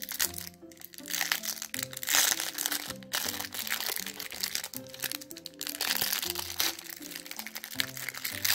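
A shiny plastic toy wrapper crinkling and crunching irregularly as it is peeled open by hand, over background music.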